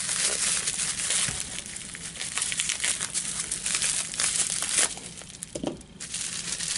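Plastic bubble wrap being crinkled and pulled apart by hand as a small package is unwrapped: a dense, continuous crackling with a brief lull about five seconds in.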